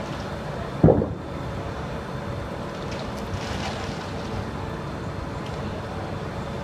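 A single loud thump of a hand bumping the camera as it is set down, about a second in, over steady wind noise on the microphone and street rumble.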